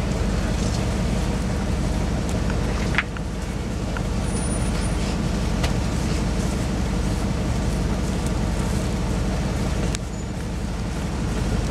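Idling engine of a tour bus, a steady low rumble. A sharp click comes about three seconds in and another about ten seconds in.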